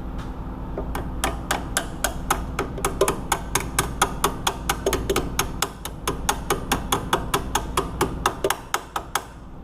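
Hand tool clicking on metal in a steady run of sharp clicks, about four a second, from about a second in until shortly before the end, while the cotter pin on a newly fitted outer tie rod end is worked into place.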